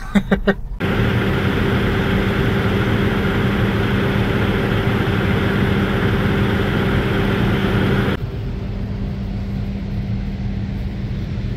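Semi truck's diesel engine and road noise heard from inside the cab, a steady low drone. About eight seconds in it drops to a quieter steady hum.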